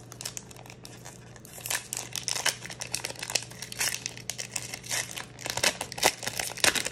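Foil Pokémon TCG Obsidian Flames booster pack being torn open and crinkled by hand: dense, irregular crackling and rustling of the metallic wrapper.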